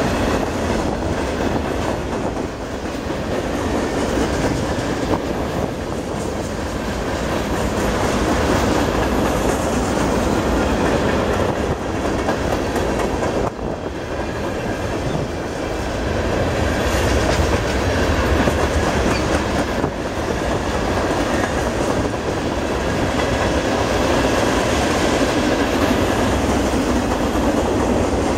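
Mixed freight train cars rolling past close by: steel wheels running over the rails in a steady noise that goes on without letup.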